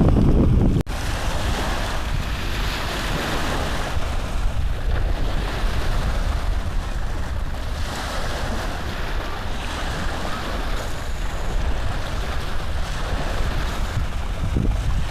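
A steady rushing noise like surf or wind, swelling gently, with a sudden brief drop-out about a second in.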